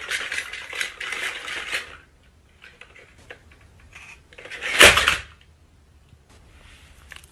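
Plastic walking toy dinosaur rattling and clicking as its motor and gears drive it across a wooden floor, then one loud clatter about five seconds in as it tips over onto the floor.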